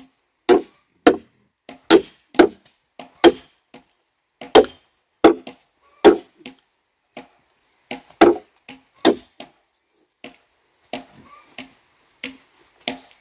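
Hand tools striking a log that is being split lengthwise: a series of sharp, heavy blows, about one or two a second, fewer and fainter in the last few seconds.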